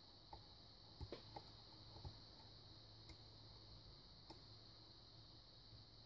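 Faint, scattered ticks and clicks of a steel lock pick working the pins of a small Yale pin-tumbler padlock held under light tension. There are several quick clicks in the first two seconds, then single ones about three and four seconds in.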